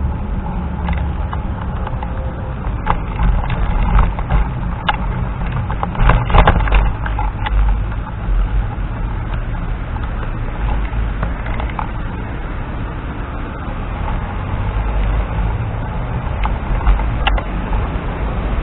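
Wind rushing over a scooter-mounted camera's microphone, with rumble from the ride over the path. Several sharp clattering knocks come about a third of the way in and one more near the end, as the scooter goes over bumps.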